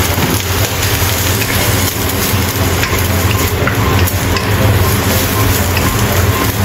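Lotus root slices and soaked dried squid strips frying in a hot wok, sizzling steadily while a wooden spatula stirs and tosses them with light scrapes and taps on the pan. A steady low hum runs underneath.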